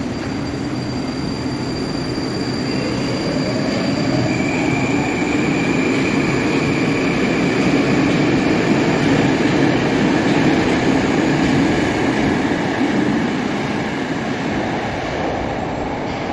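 Moscow Metro train pulling away from the platform: an electric motor whine rises in pitch and then holds over the steady rumble of wheels on rail. It grows louder through the middle and eases off near the end.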